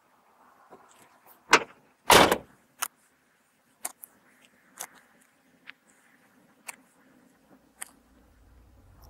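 Footsteps on asphalt, sharp steps about once a second, with two loud knocks between one and two and a half seconds in. A low rumble starts to build near the end.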